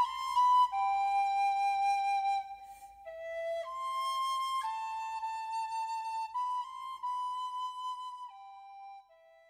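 Background music: a slow solo flute melody of held notes, one at a time, softening and fading out near the end.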